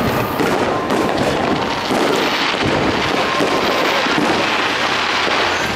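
Fireworks display going off: many bangs and crackles in quick succession, overlapping into an unbroken barrage.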